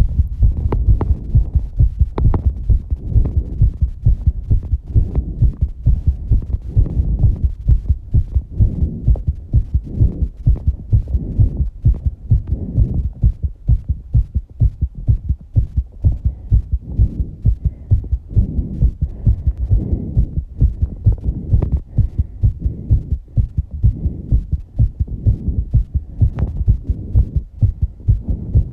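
A fast human heartbeat after exercise: a steady low thump about twice a second, with heavy breathing swelling and fading underneath every few seconds.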